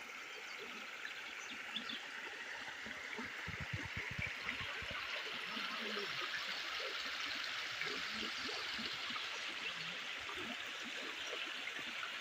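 Running water, like a stream trickling and babbling, as a steady even rush.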